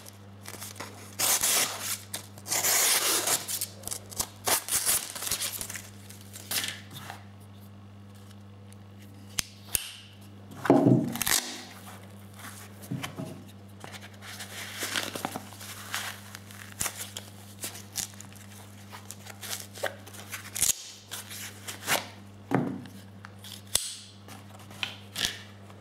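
Gerber Bear Grylls folding knife blade slicing through a sheet of paper, a quick run of cuts and paper crinkling during the first five seconds. After that, quieter rustling and clicks as the nylon sheath and the knife are handled, with one louder rustle about eleven seconds in.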